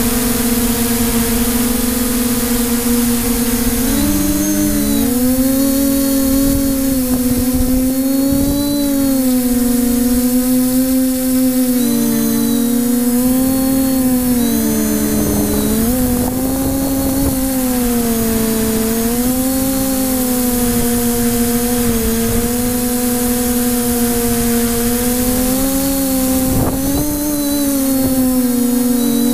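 Multirotor drone's electric motors and propellers humming loudly and steadily as heard from its onboard camera, the pitch wavering up and down every second or two as the craft manoeuvres. A brief knock comes near the end.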